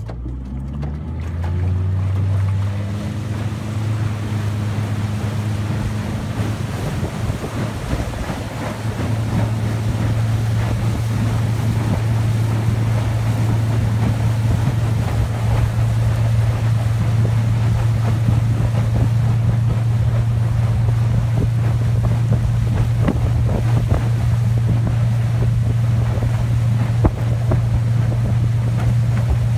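Tiller-steered outboard motor on a small aluminium boat throttling up, its pitch rising over the first two seconds, then running steady at speed under the load of towing a water-skier. Wind buffets the microphone and water rushes past the hull.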